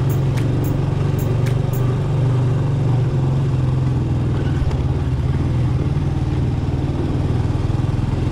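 Motor vehicle engine running steadily at low speed, a constant low hum that holds at one pitch throughout.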